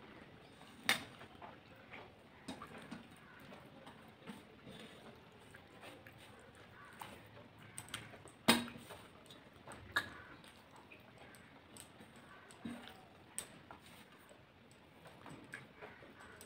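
Quiet eating sounds of a meal taken by hand: chewing, and rice being mixed with the fingers on a steel plate, with scattered sharp clicks and smacks, the loudest about halfway through.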